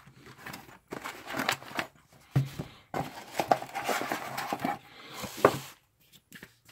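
Cardboard box and paper packaging handled by hand: a series of separate rustles, scrapes and light knocks as the box is opened and the folded manual is taken out, with a sharp click near the end.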